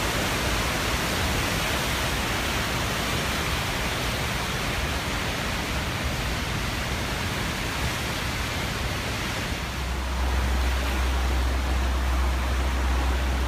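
Floodwater rushing through whitewater rapids on the Guadalupe River below a dam spillway release, a steady wash of noise. About ten seconds in, a deep low rumble joins and the sound gets a little louder.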